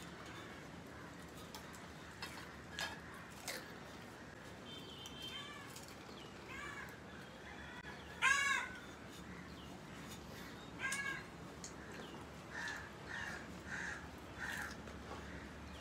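Crows cawing: single caws scattered through, the loudest about eight seconds in, then a quick run of about five short caws near the end.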